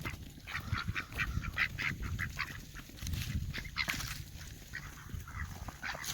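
A flock of domestic ducks quacking and calling all at once, many short overlapping calls, as they scramble for thawed peas.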